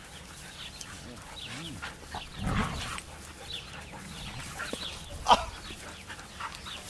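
A pack of Siberian huskies play-wrestling: scuffling and short yips and whines, a thud about two and a half seconds in, and one short loud yelp a little after five seconds.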